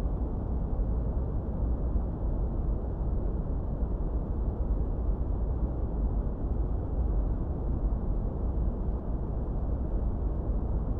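Continuous generated masking noise, steady and unchanging, deep and rumbling with little hiss on top: brown noise rather than flat white noise.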